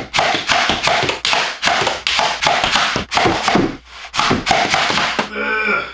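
Nerf Demolisher blaster being primed and fired over and over: a fast run of sharp plastic clacks and dart shots, about three a second. Its priming slide is sticking tight, which the owner takes for a faulty unit.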